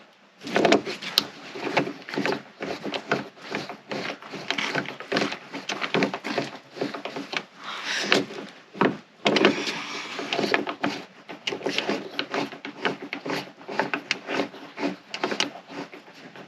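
Astro 1450 hand rivet-nut tool being squeezed to set a 10-32 plusnut in a pre-drilled hole in the van's sheet metal: dense, irregular clicking and creaking over repeated strokes, with a short lull about halfway through.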